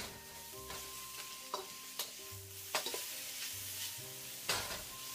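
Sliced onions, garlic and ginger sizzling in oil in a non-stick wok while a spatula stirs them, scraping and knocking against the pan a few times, loudest about three and four and a half seconds in.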